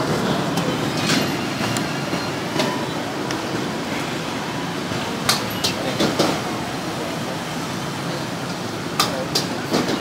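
Steady traffic hum with a few sharp clicks of chopsticks against a plastic plate, a cluster around the middle and another near the end.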